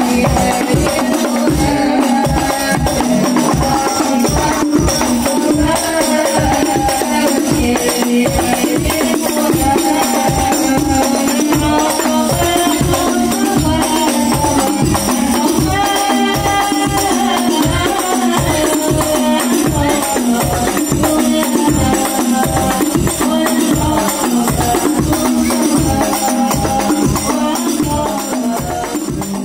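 Hadrah Banjari ensemble: boys' voices singing sholawat together through microphones over a fast, steady beat of hand-struck terbang frame drums. The music fades out near the end.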